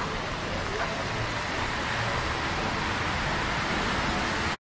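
Steady hiss of city traffic on wet streets, with tyres on the wet road, growing a little louder and then cutting off abruptly near the end.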